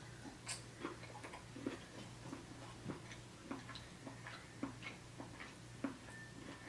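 Close-up mouth sounds of chewing crunchy deep-fried General Tso shrimp: faint, irregular crunches and clicks about two to three a second, over a low steady hum.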